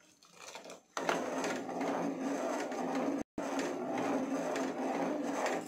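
Steel ladle stirring and scraping around a nonstick saucepan of milk as it is reduced and thickens into condensed milk, a steady scraping from about a second in, with a brief dropout midway.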